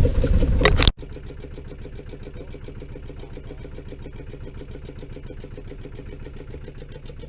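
Loud wind and water noise that cuts off abruptly about a second in, followed by a small engine idling steadily with a fast, even chatter.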